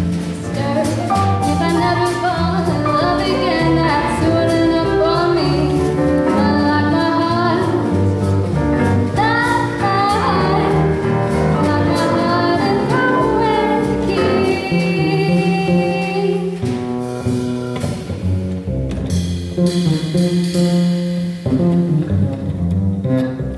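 Female jazz vocalist singing live with a piano, upright double bass and drum kit accompanying her. The last several seconds hold long sustained notes.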